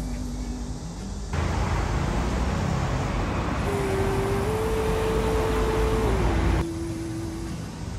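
Road traffic noise, a steady rush that starts abruptly about a second in and cuts off abruptly before the end.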